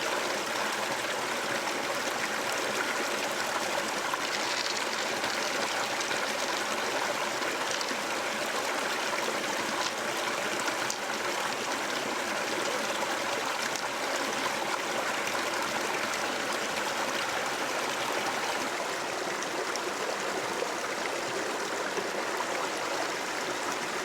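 River water flowing steadily, an even rushing sound with a few faint clicks.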